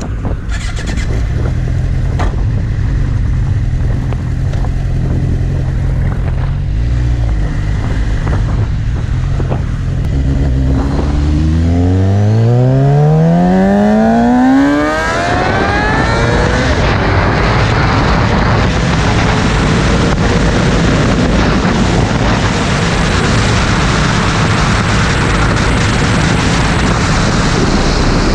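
A 600cc inline-four sport bike running at low revs, then pulling hard about eleven seconds in, its pitch rising steeply for some four seconds until a sudden drop at the upshift. It then runs at speed under a loud rush of wind noise on the microphone.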